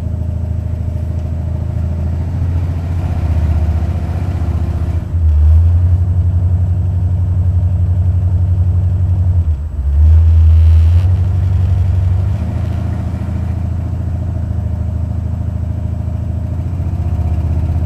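Stage-1 Buick 455 V8 running as the car drives, heard from inside the cabin, the engine note rising under throttle about five seconds in, dipping briefly near ten seconds, then rising again before easing back. The engine has a driver-side valvetrain tick that the owner suspects is a lifter not pumping up or a pushrod problem.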